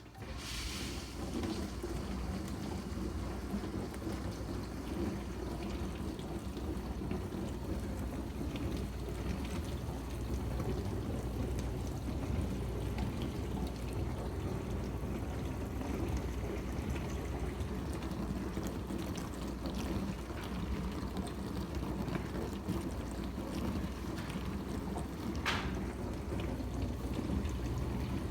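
Dishwasher starting its wash: the pump kicks in suddenly, then runs steadily with water spraying and splashing inside the tub over a low hum. There is one brief click about 25 seconds in.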